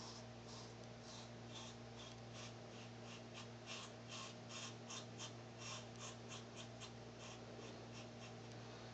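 Double-edge safety razor scraping through stubble on a lathered face and neck in short, faint strokes, about three a second, on the final pass of a wet shave. A steady low hum sits underneath.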